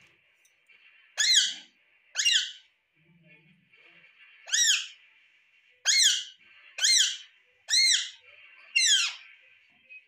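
Alexandrine parakeet giving seven short, loud calls, each rising and then falling in pitch, about a second apart with a longer gap after the second.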